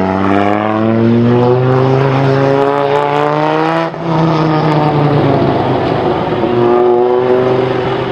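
Rally car engine rising steadily in revs for about four seconds, then dropping abruptly just before the halfway point and running on at lower revs, picking up slightly near the end.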